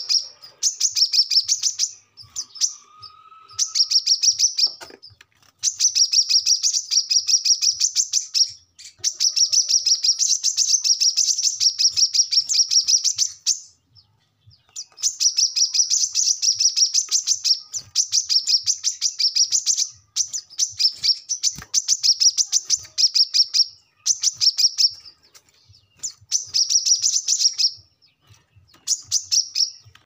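A caged male brown-throated sunbird (kolibri kelapa) singing hard and continuously: long runs of rapid, high chattering notes, each a second to a few seconds long, broken by brief pauses.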